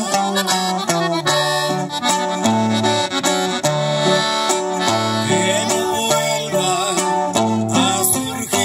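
Live norteño music with a button accordion playing the melody over strummed guitar and bass notes, an instrumental passage without singing.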